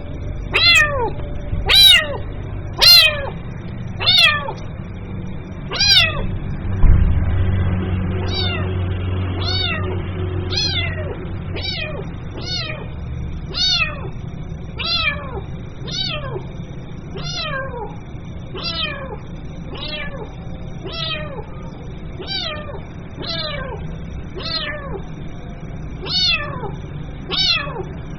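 Kitten meowing over and over, calling for its mother: a steady run of short, high calls, each falling in pitch, about one a second, the first few louder.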